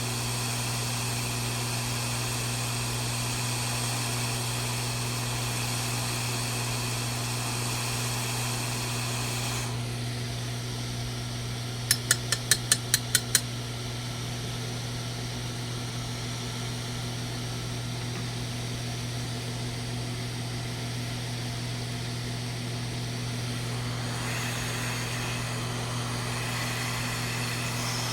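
A small motor or fan running steadily with a low hum and hiss. The higher hiss drops away about ten seconds in and comes back near the end, and a quick run of about seven sharp clicks falls in the middle.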